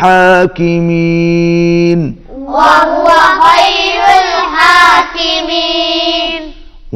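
Quranic recitation with tajweed: a man's voice holds one long steady note. Then, about two and a half seconds in, a group of young boys chant the verse together in unison at a higher pitch, their voices wavering through the melodic lengthenings.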